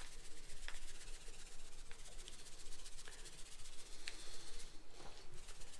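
Dry seasoning granules sprinkling out of a plastic bag onto a skinned hog carcass: a steady, fine, sandy hiss.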